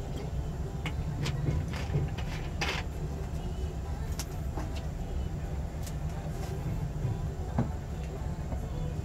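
Interior running noise of a 24 series sleeper coach on rails: a steady low rumble with scattered sharp clicks and knocks from the wheels and car body.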